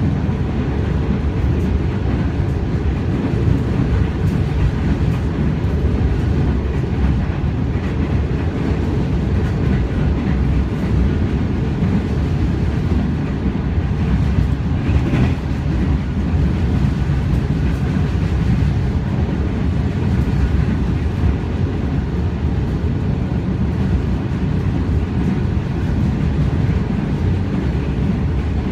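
Inside a Metro Trains electric suburban train running at speed: a steady low rumble of wheels on rails with carriage noise, and one brief louder noise about halfway through.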